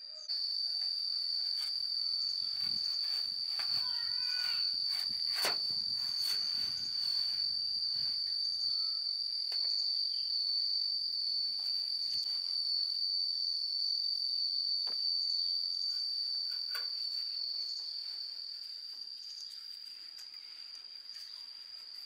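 Steady high-pitched insect drone, a single unbroken tone that eases a little near the end. Scattered clicks and rustles from handling the felt insulation on the air conditioner's compressor.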